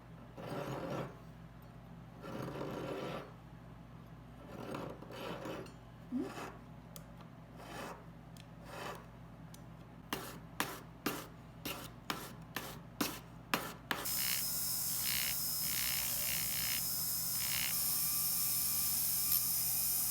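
Hand tools working a gold ring: scattered rubbing and filing strokes, then a run of quick, sharp strokes about two a second. About fourteen seconds in, a steady hiss begins.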